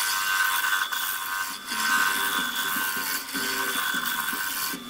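Wood lathe turning a laminated padauk and oak hammer handle mounted off-centre, with a hand-held turning tool cutting it to an oval: a steady hiss of shavings over the lathe's whine, stopping abruptly near the end.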